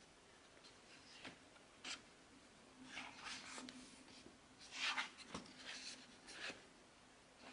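Paper photobook pages being turned and unfolded by hand: soft rustles and swishes of paper, the loudest about five seconds in, with a few light taps.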